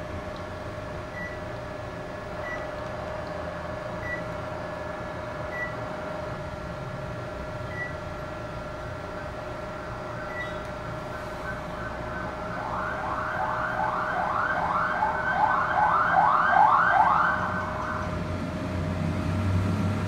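Short single beeps from a Panasonic split air conditioner's indoor unit, six in the first ten seconds, each one the unit acknowledging a remote-control button press, over a steady hum. From about twelve seconds to eighteen seconds comes a louder run of quick rising siren-like chirps, about two a second.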